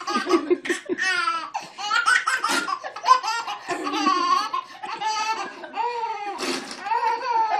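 A baby laughing hard: a rapid run of high-pitched laughs with short breaks for breath.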